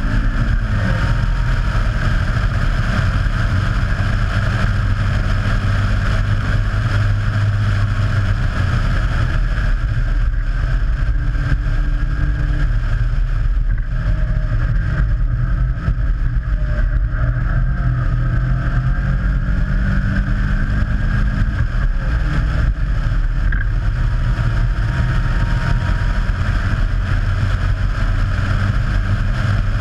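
Caterham Seven race car's Ford Sigma four-cylinder engine running hard at racing speed, heard from on board the open cockpit as a steady drone with small shifts in pitch through the lap.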